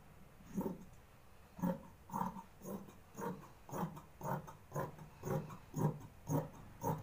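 Large fabric scissors cutting through grey stretch knit tracksuit fabric: a steady run of about a dozen crunchy snips, roughly two a second, starting about half a second in.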